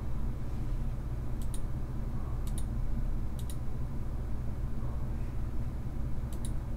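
Computer mouse clicking four times, each click a quick press-and-release pair, over a steady low hum.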